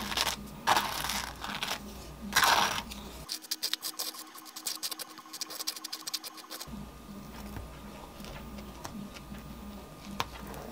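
A metal spreading knife scraping mustard across dry, golden-toasted whole-wheat bread: a few loud rasping strokes in the first few seconds, then quicker, fainter scratching.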